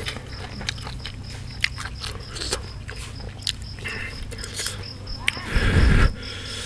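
Close-miked chewing of a mouthful of beef laab, with many small wet mouth clicks and one louder burst near the end.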